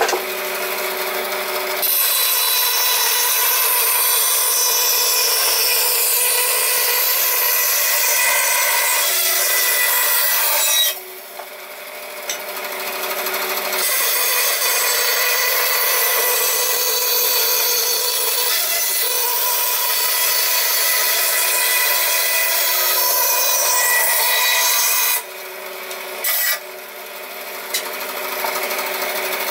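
Power tool cutting or sanding wood in two long passes. Between them, about ten seconds in and again near the end, it drops back to the steady hum of its motor running free.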